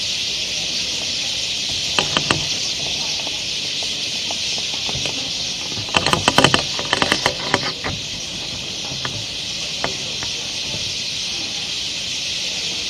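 A dense chorus of a great many birds chirping at once, heard as one continuous high-pitched hiss. A few sharp clicks or knocks cut through it about two seconds in, and a quick cluster of them comes around six to seven seconds in.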